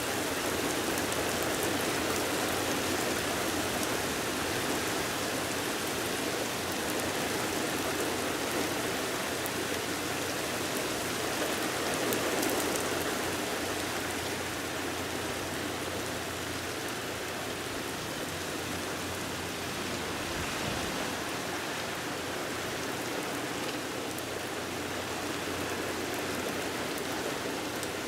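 Steady rain falling during a thunderstorm, an even hiss of drops on surfaces that swells slightly about twelve seconds in and then eases a little.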